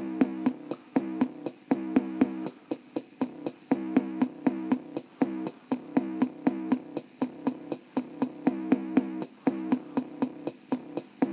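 Music with a fast beat of sharp clicks and a repeating bass line, played through the built-in speaker of an Orion VHS combo CRT TV; the deepest bass hardly comes through.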